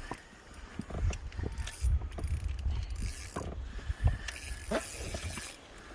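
Fishing reel being cranked, its mechanism clicking and whirring unevenly, over low bumps of wind on the microphone.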